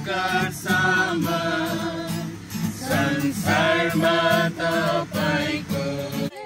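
Background music: a song with singing over a steady beat, cut off suddenly at the end.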